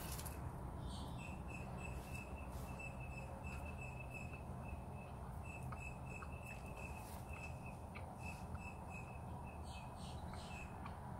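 A bird outside gives a steady run of short, high chirps on a single pitch, faint, over a low background hum, with a few soft clicks.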